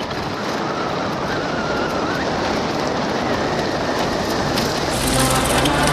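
Vehicle driving along a rough dirt road: steady road and engine noise with constant rattling from the cabin. Music starts near the end.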